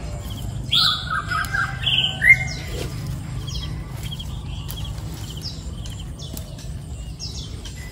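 Birds calling and chirping: a few louder, sweeping calls in the first couple of seconds, then many small, high chirps over a low, steady hum.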